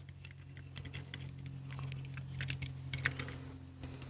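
Small metal carburetor parts being handled: scattered light clicks and ticks as the needle valve and its brass seat are fitted into the aluminium float bowl of a Linkert M74-B carburetor. A steady low hum runs underneath.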